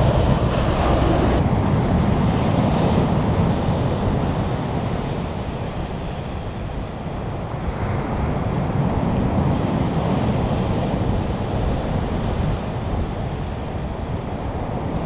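Distant jet engine noise from a Fokker 70 on its landing roll, a low steady rumble mixed with wind buffeting the microphone. It swells a little about eight seconds in.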